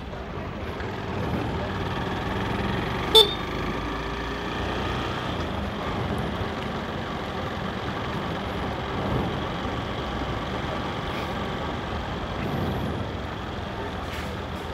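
Motorcycle engine running steadily under way, with road and wind noise. A single short horn toot sounds about three seconds in.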